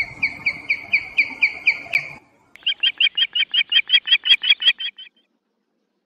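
Osprey calling: a run of short, sharp whistled notes, about four or five a second. After a brief pause comes a second, higher and quicker run, which stops about five seconds in.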